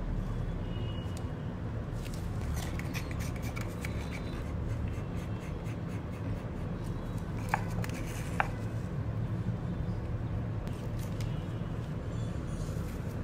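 Wooden stirring stick scraping and tapping against a small paper cup and a silicone mold while scooping and spreading resin: a run of light scrapes and ticks, with two sharper clicks a little past halfway, over a steady low hum.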